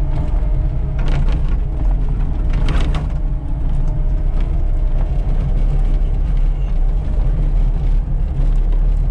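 A vehicle drives slowly over a rough, rutted dirt road: a steady low engine and drive rumble, with a few rattles and knocks from bumps in the first three seconds.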